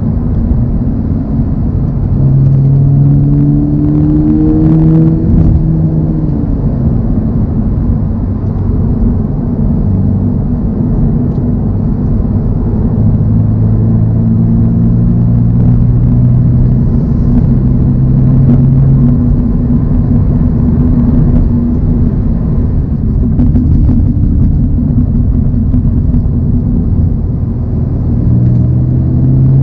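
A 2024 Toyota GR86's 2.4-litre flat-four engine running under way with a steady low road rumble. The engine note rises and falls with the throttle, climbing a few seconds in and again near the end.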